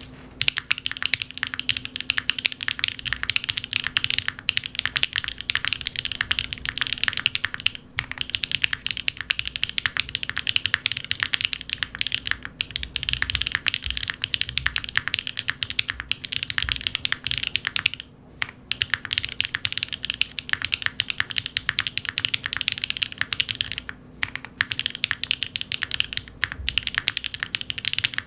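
Fast continuous typing on a mechanical keyboard with factory-lubed HMX Cosmic Purple linear switches, an aluminium plate and no foam, with ABS doubleshot keycaps; dense rapid key clacks with a few brief pauses.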